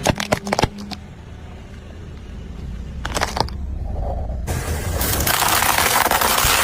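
A car engine rumbling low as it crushes plastic toy buses: sharp cracks and snaps in the first second and again about three seconds in, then a loud, dense crunching noise building through the second half.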